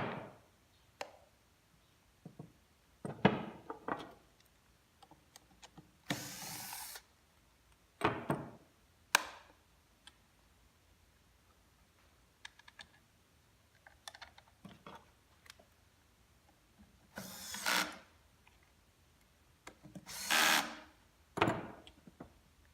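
Porter Cable 7518 router parts being fitted together by hand: several separate knocks and clunks as the housing is tapped and seated, with three short bursts of noise of under a second each, about 6, 17 and 20 seconds in.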